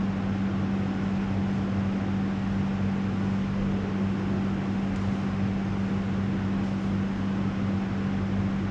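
Steady low electrical hum over an even hiss, unchanging.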